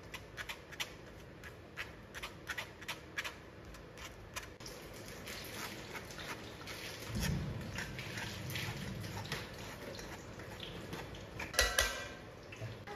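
Spatula scraping and pressing cooked potato through a fine wire-mesh sieve, a run of many small clicks and scrapes. Near the end, a few sharper knocks as the spatula works the mashed potato in an enamelled pot.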